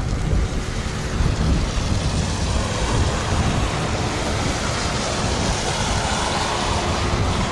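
Wind buffeting the microphone, with rain. Behind it is the faint wail of a Federal Signal STH-10A rotating mechanical siren, swelling and fading in pitch and loudness.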